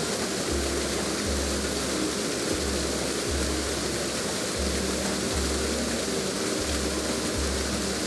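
Steady rushing roar of a waterfall's falling water, over background music with a pulsing low bass line.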